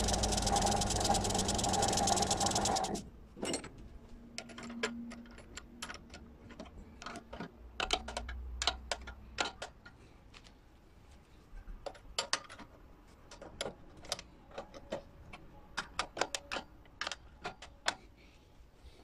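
A power tool motor runs steadily, then cuts off abruptly about three seconds in. Irregular light clicks and taps follow, the sound of parts and the workpiece being handled.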